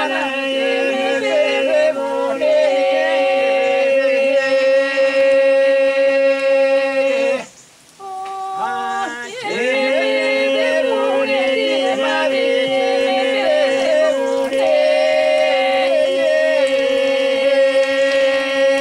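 Unaccompanied folk singing by a small group: a man's voice leads a wavering, ornamented melody while another voice holds one steady low drone note beneath it. The singing breaks off about seven and a half seconds in and starts again a couple of seconds later.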